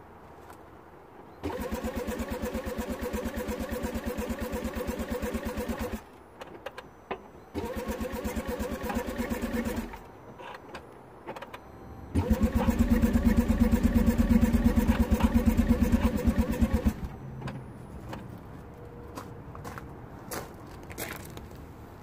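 A 2009 Smart Fortwo 451's 1.0-litre three-cylinder petrol engine being cranked by its starter in three attempts: a short one, then a longer, louder one near the end, with an even pulsing rhythm and no firing at all. This is a crank-no-start: fuel is reaching the engine, and the owner suspects there is no spark.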